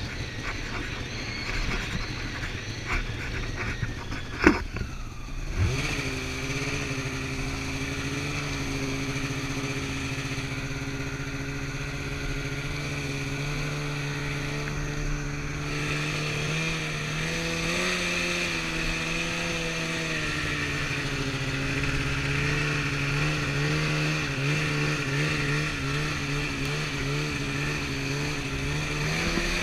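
Snowmobile engine on the move. For the first few seconds it runs rough and low, with a sharp knock about four seconds in. Then it picks up and holds a steady note under throttle, rises slightly near the middle, and revs up right at the end.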